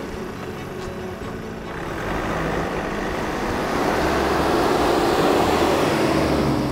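Ford Transit tipper truck driving toward and past close by, its engine running and tyres crunching on gravel, growing louder to a peak about five seconds in.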